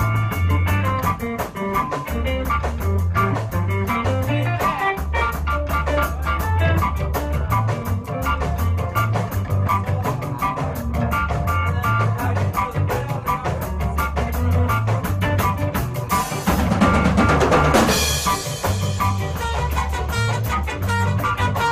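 Ska band music in which the drum kit leads, with snare rimshots and bass drum over a steady bass line. About sixteen and a half seconds in there is a brief noisy swell, the loudest moment.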